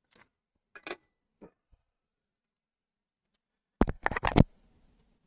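Handling noise at the workbench: a few faint ticks, then about three-quarters of a second of quick, sharp clicks and knocks as a component lead is worked into a hole in the circuit board.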